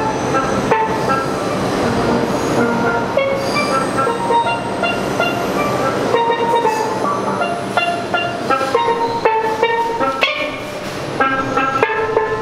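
A pair of steel pans played with mallets in a quick stream of ringing notes, over the noise of a subway train running through the station.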